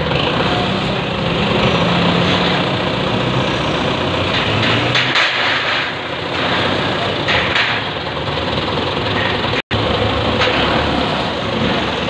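Belarus 510 tractor's diesel engine idling steadily. The sound cuts out for an instant about ten seconds in.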